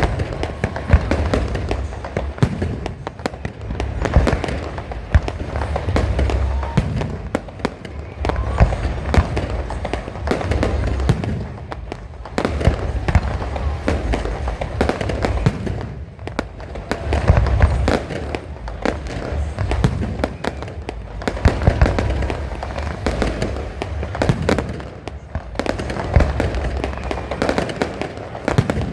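Fireworks display: a dense, unbroken run of sharp bangs and crackles over repeated deep booms.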